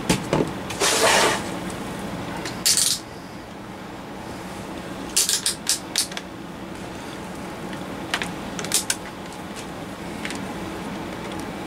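Clicks and clatter of tools and test gear being handled on a workbench. There are two short rustling scrapes in the first three seconds, then quick runs of small sharp clicks around five and eight seconds in, all over a steady low hum.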